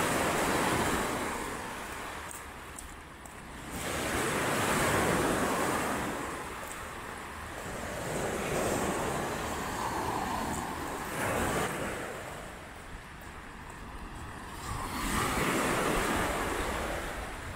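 Lake Michigan waves breaking and washing onto the shore, swelling and fading about four times.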